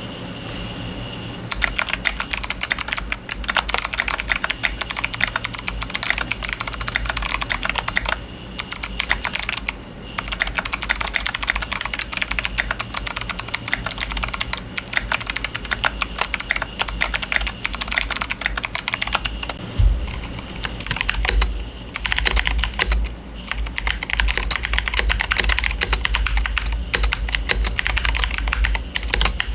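Fast typing on a mechanical keyboard fitted with clicky switches: a dense stream of sharp clicks, with short breaks about 8 and 10 seconds in and a change in the sound about 20 seconds in.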